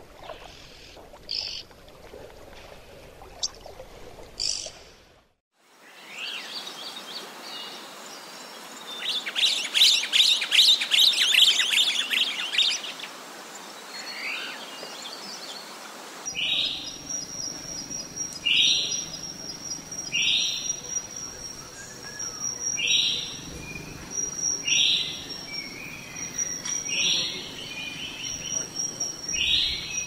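Red-billed oxpecker calls: a few short calls, then a spell of dense, rapid chattering. About halfway through, a grosbeak starling takes over, giving short calls about every two seconds over a steady high-pitched whine.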